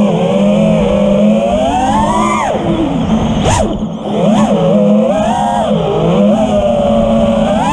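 FPV quadcopter motors whining, the pitch swinging up and down as the throttle changes, with a sharp drop and rise about three and a half seconds in. A steady low hum runs underneath.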